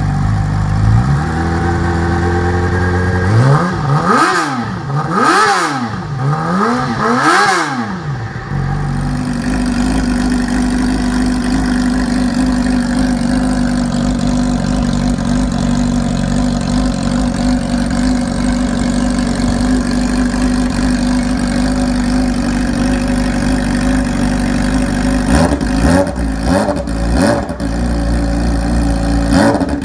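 2017 Yamaha R6's 599cc inline-four sport-bike engine, heard through its exhaust, being revved: it climbs from idle, is blipped sharply three times, then holds a steady raised engine speed for about fifteen seconds before a few quick throttle blips near the end.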